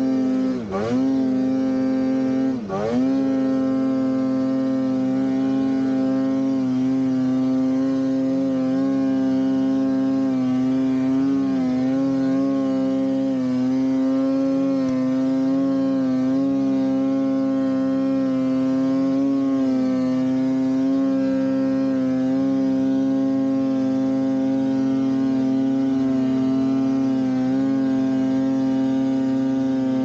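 Polaris Khaos 9R snowmobile's two-stroke twin engine running at steady high revs. The throttle dips and comes back twice in the first three seconds, then the pitch holds nearly constant.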